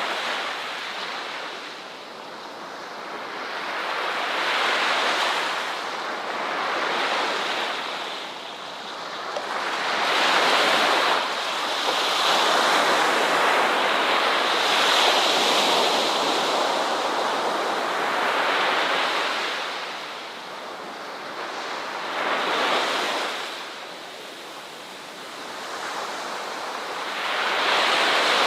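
Ocean waves breaking and washing on a shore, the surf swelling and falling back every few seconds, with a longer stretch of heavy surf near the middle.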